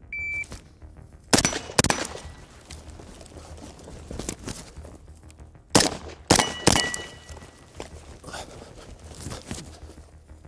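A shot timer's start beep, then suppressed rifle shots on steel targets: a pair of shots about a second in, and a quick string of three about six seconds in, the steel plates ringing after the hits. Between the strings come lighter thuds of the shooter changing position.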